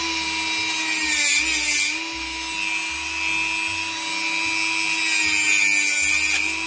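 Dremel rotary tool running at a steady high-pitched whine while cutting the ends of dry reed stems for a mason-bee nest, with a harsh rasping hiss from the cut about a second in and again near the end. It cuts the reed cleanly without crushing the ends.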